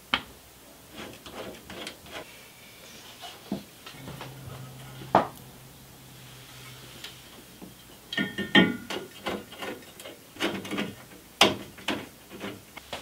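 Parts being handled in a car's engine bay: scattered knocks, clicks and rubs, with a cluster of ringing metallic clinks about eight seconds in, as an aluminium coolant surge tank is offered up against the steel firewall for test fitting.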